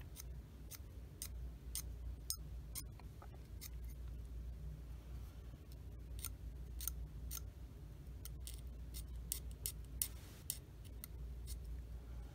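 Hobby knife blade scraping mold lines off a small plastic kit part: a run of short, faint scrapes, about two a second, over a low steady hum.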